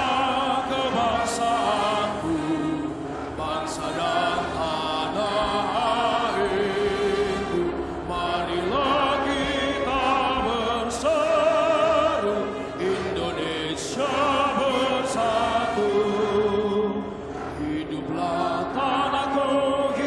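Vocalists singing with heavy vibrato into microphones over live accompaniment from a marching band, with a few sharp percussive strikes.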